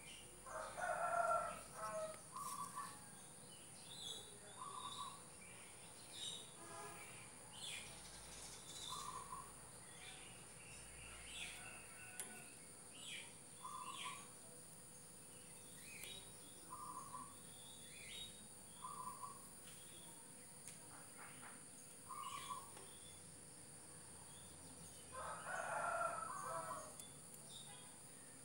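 A rooster crowing twice, about a second in and again near the end, over short repeated bird calls about every two seconds and higher chirps.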